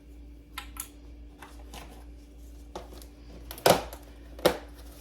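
Spoon and plastic yeast container being handled while yeast is spooned out: light scattered clicks and scrapes, then two louder knocks near the end.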